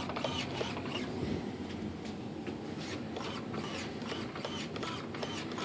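Faint, short whirring of a small RC servo driving the glider's rudder linkage through its throw.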